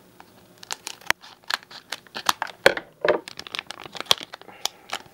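Scissors snipping open a foil trading-card booster pack, the wrapper crinkling, in an irregular run of sharp snips and rustles.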